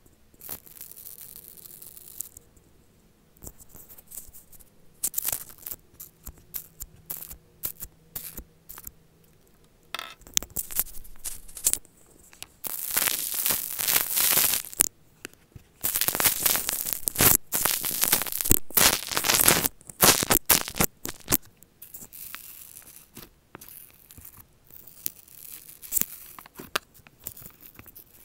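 Slime sizzle: crackling and popping of tiny air bubbles bursting as fingers press and stir a tub of slime, picked up close by an Apple earbud microphone and sped up. The crackles come in bursts, sparse at first, then dense and loudest for several seconds about halfway through, and thin out again near the end.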